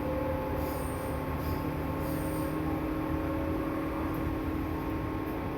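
Inside a 205 series 1000 subseries electric train car while it runs: a steady rumble of wheels on the rails, with several even tones from the running gear held throughout.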